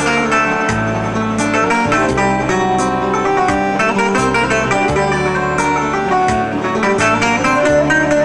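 Greek bouzouki playing a quick plucked instrumental melody between sung verses, over a steady bass accompaniment.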